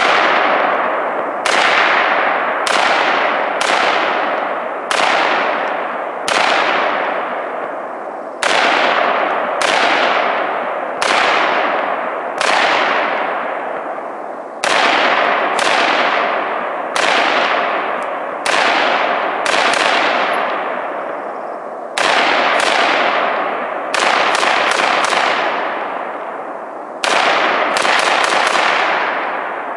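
AR-15 semi-automatic rifle firing about two dozen shots, mostly one at a time about a second apart, with quick strings of two to four shots later on. Each shot rings out in a long fading echo.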